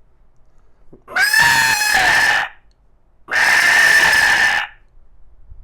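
A man imitating a sheep's bleat with his voice: two loud, drawn-out bleats, each about a second and a half long, with a short pause between.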